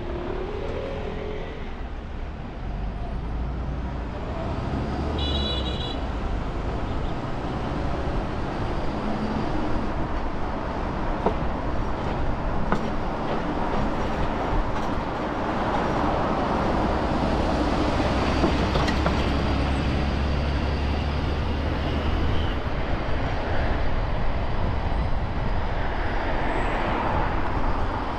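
Street traffic heard from a car driving through city streets: a steady rumble of tyres and engines, with a brief high beep about five seconds in.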